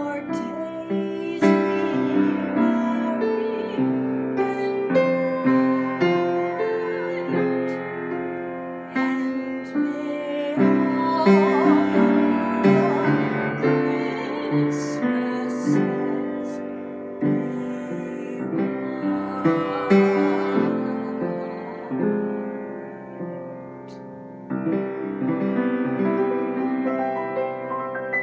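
Piano playing a continuous accompaniment of chords and melody, swelling and easing in loudness, with a brief dip near the end before the playing picks up again.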